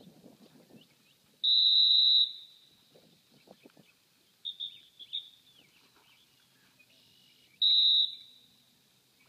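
Dog-training whistle blown to a retriever: one long, loud steady blast about a second and a half in, a few short, fainter toots around the middle, and a second, shorter blast near the end.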